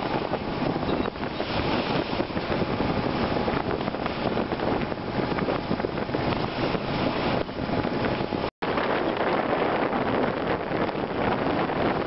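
Strong wind buffeting the microphone over water rushing and splashing along the hull of a sailboat motoring into the wind. The sound cuts out for an instant about two-thirds of the way through.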